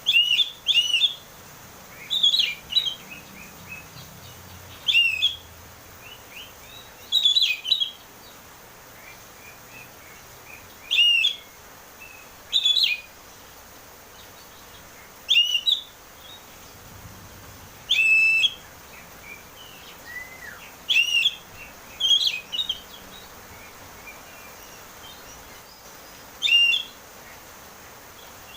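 Oriental magpie-robin (kacer) singing in the clear, open 'ngeplong' style: short, loud whistled phrases with sweeping notes, repeated every second or two.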